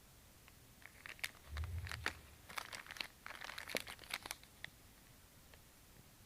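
Crinkling and a quick series of sharp clicks and ticks, like something being handled in packaging, with a low thump a second and a half in; it stops a little under five seconds in.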